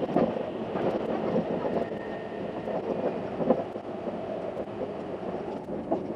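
Limited express train running on the rails, heard from inside: a steady rumble with many short, irregular clicks and knocks.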